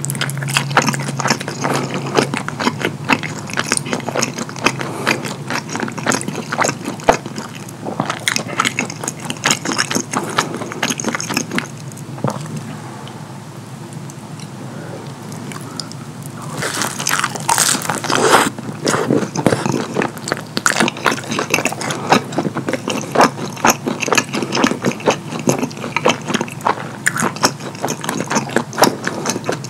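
Close-miked messy eating: wet chewing and lip smacking on saucy pizza crust and fettuccine, a dense run of moist clicks and squelches. The mouth sounds ease off for a few seconds in the middle, then return with a louder burst.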